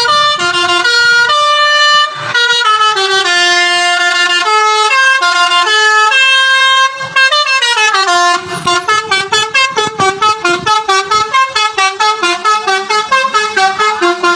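Bus telolet basuri horn, a multi-tone musical air horn, playing a tune in held notes that step up and down in pitch. About eight seconds in it changes to a fast run of short staccato blasts.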